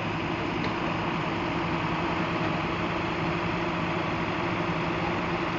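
Bucket truck's engine idling steadily, a constant low hum with no change in pitch while the hydraulic platform is worked.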